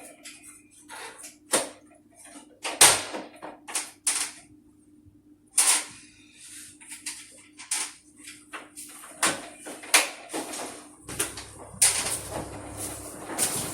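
Irregular knocks, clicks and scrapes of air-conditioner parts and covers being handled and worked on, over a faint steady hum. A low rumble joins about eleven seconds in.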